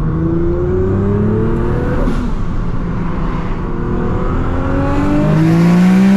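Tuned Nissan GT-R R35 twin-turbo V6 pulling hard under acceleration, heard from inside the car. The engine note climbs steadily, drops at an upshift about two seconds in, then climbs again through the next gear.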